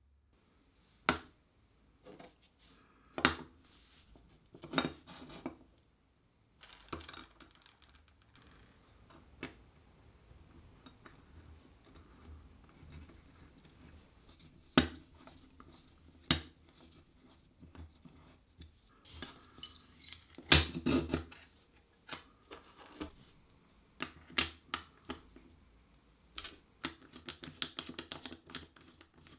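Metal parts of a Stanley 75 bullnose plane clicking and knocking against each other and on the table as the plane is put back together: a string of separate sharp clicks, the loudest about twenty seconds in, with a quicker run of small clicks and scraping near the end.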